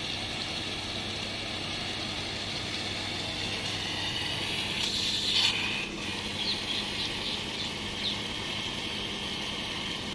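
Pump-fed water jet running steadily as it flushes a clogged diesel particulate filter with detergent water, with a short louder hiss about five seconds in.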